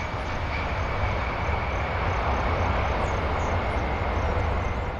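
Four-engine jet airliner landing and rolling out: a steady roar of its turbofan engines with a deep rumble underneath and a faint thin whine above.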